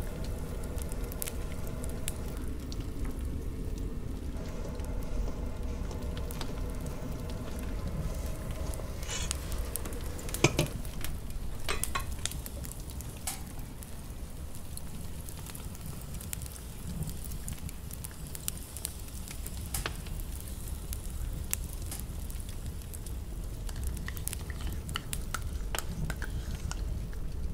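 Kitchen handling sounds over a steady crackling, sizzling background: a spatula stirring melted chocolate and butter at the start, then scattered clicks and taps as ingredients are poured into bowls, with one sharp knock about ten seconds in.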